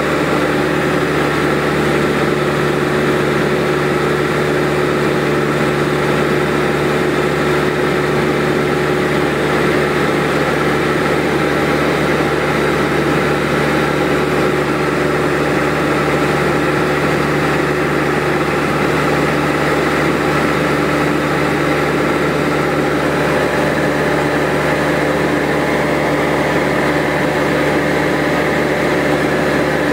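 Light aircraft's engine and propeller running steadily, heard from inside the cabin: an even drone with several steady tones and no change in pitch or level.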